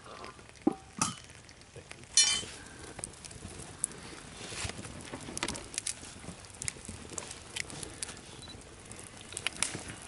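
Small wood fire crackling and hissing, with scattered clicks and a couple of knocks. A sharp clink sounds about two seconds in.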